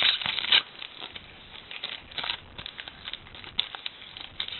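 Trading card pack wrapper crinkling loudly for about half a second as it is opened, then light rustles and soft clicks of the cards being handled.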